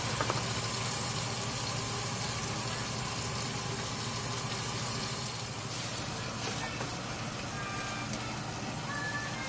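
Oil sizzling steadily under food frying in a nonstick frying pan.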